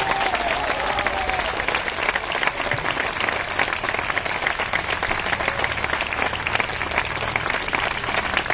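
Large seated audience applauding: dense, steady clapping that holds at one level throughout.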